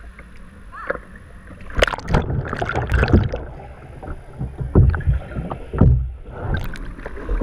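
Kayak capsizing in an Eskimo roll. Water splashes over the bow-mounted camera about two seconds in, followed by irregular, muffled sloshing and rushing of water while the microphone is under the surface.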